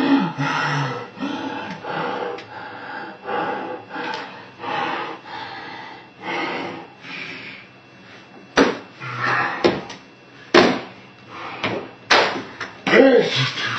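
Slowed-down audio of a boy raging at a computer keyboard: a run of drawn-out, deep noisy bursts, then, from a little past halfway, several sharp knocks of slowed keyboard slams.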